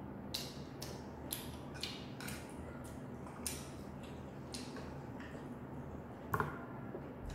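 Close-up eating sounds: short wet mouth clicks and slurps as saucy instant noodles are eaten with chopsticks, a sharp click every half-second or so, the loudest about six seconds in. A low steady hum runs underneath.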